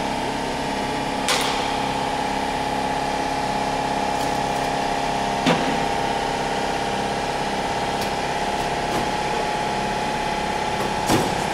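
Steady mechanical hum with a constant pitch, broken by a few sharp knocks.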